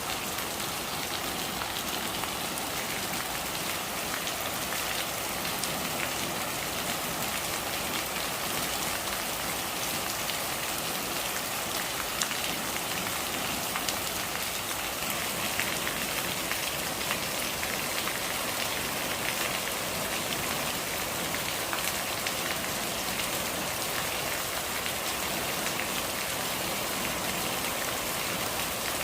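Steady rain falling on a surface: a dense, even patter of drops, with a few louder single drop hits standing out.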